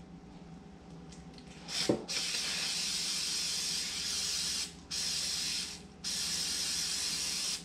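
Aerosol can of air-filter oil spraying onto a foam air filter, oiling it. It comes in three hissing bursts starting about two seconds in: one of nearly three seconds, then two shorter ones with brief pauses between.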